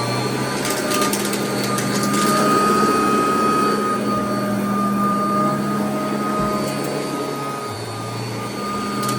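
Royal vacuum cleaner running on carpet: a steady high motor whine over a low hum, with scattered crunchy crackles of debris being sucked up.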